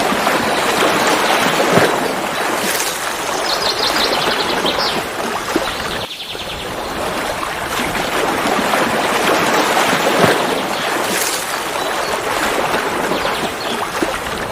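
Mountain waterfall rushing steadily, dipping briefly about six seconds in. A bird gives two quick high trills a few seconds in.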